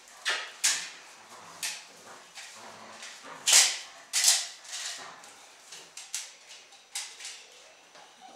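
A Malinois puppy biting and tugging at a rag lure on a stick over a concrete floor: a run of short, sharp swishing and scuffing noises, the loudest two about three and a half and four seconds in.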